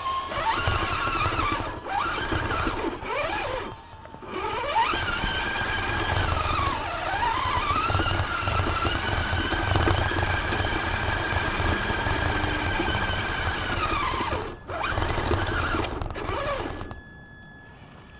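Brushed electric motor and gear train of an Axial Honcho RC rock crawler whining as it drives. The pitch rises and falls with the throttle, cuts out briefly a few times, and stops near the end.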